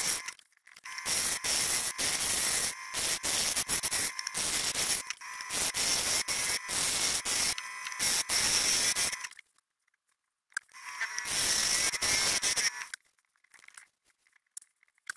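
Lathe turning tool cutting a spinning hybrid blank of cherry burl and epoxy resin: a steady scraping noise that cuts off abruptly several times, with about a second of silence near the middle and a longer silence near the end.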